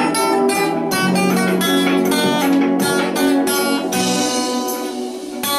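Acoustic guitar playing an instrumental intro, mixing picked melody notes and strummed chords, with a chord struck again near the end.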